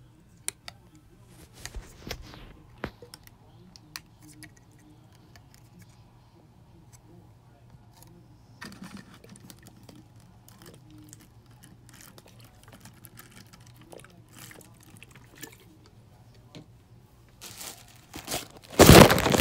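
Quiet clicks and handling noises while fingernail polish remover is poured from a bottle into a paper bowl. Near the end comes a loud crinkling rustle, the loudest sound.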